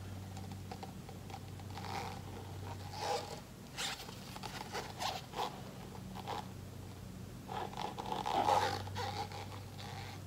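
A paint cup scraped and tapped against a canvas to work the last of the paint out: a series of short raspy scrapes, the loudest about eight seconds in, over a steady low hum.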